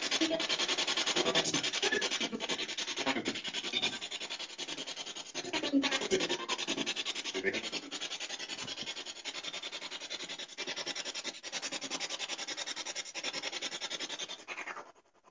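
Spirit box (radio-sweep ghost box) sweeping through stations: a steady hiss of static chopped rapidly, with brief snatches of radio sound. It cuts off abruptly near the end.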